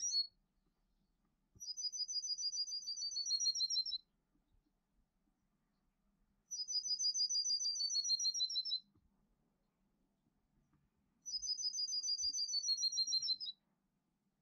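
Birdsong of the 'canto metálico' type, played as a training song for young cage birds: three matching phrases, each a fast, high trill of paired notes falling slightly in pitch, about two and a half seconds long, repeated every five seconds or so. A short chirp comes right at the start.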